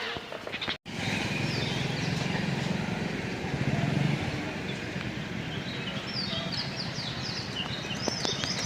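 Outdoor background with a low rumble through the first half. In the second half many birds join in with high, repeated, quickly falling chirps that build into a busy chorus.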